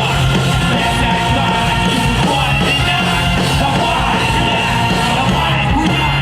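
Live rock band playing a song, loud and steady.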